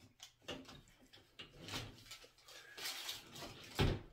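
Close-up eating sounds: biting into and chewing a chicken wing, heard as irregular small clicks and mouth noises, with one louder thump near the end.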